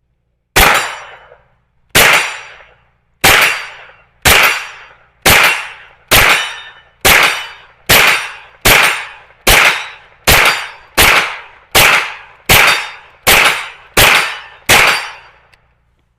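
Smith & Wesson FPC 9mm carbine firing seventeen shots in a steady string, roughly one a second, slightly quicker after the first few, emptying a 17-round magazine.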